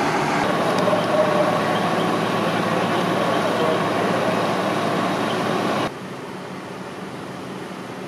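Steady drone of idling truck engines, with a faint steady tone over it; the sound drops abruptly to a quieter hum about six seconds in.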